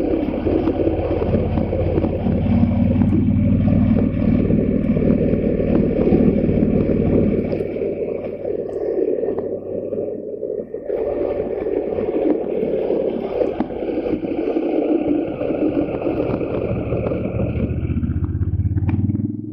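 Motorcycle engine running steadily under way. The throttle eases off about eight seconds in, and the engine pulls again about three seconds later.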